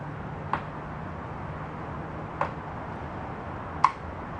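Three sharp clicks as small parts on the pit bike are handled while the kill-switch wire is routed, the last one loudest, over a faint steady low hum.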